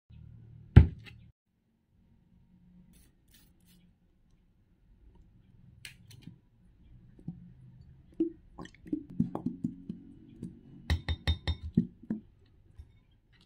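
Clear glue squeezed from a plastic bottle into a hand-held glass bowl: a run of clicks and small clinks against the glass, busiest in the last five seconds. A single sharp knock comes about a second in.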